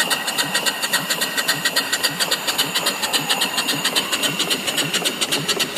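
Home-built live-steam mill engine (box-bed type, 3-inch bore by 4-inch stroke, flyball governor) running smoothly on boiler steam, its exhaust chuffing in a rapid, even beat over a steady steam hiss.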